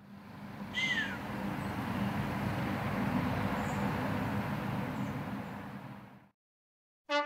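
Outdoor woodland ambience: a steady rushing hiss that fades in and out, with a single short call falling in pitch about a second in and a few faint high bird chirps later.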